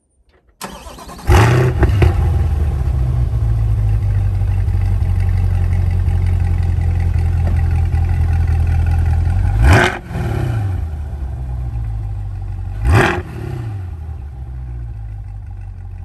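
Chevrolet C8 Corvette's 6.2-litre V8 with the NPP performance exhaust starting in sport mode. It catches with a loud flare and settles into a steady idle. Later come two short revs, about three seconds apart.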